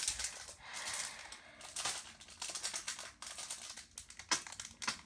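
Foil Pokémon booster pack wrapper crinkling and tearing as it is opened, in a run of irregular rustling bursts with a few sharp crackles near the end.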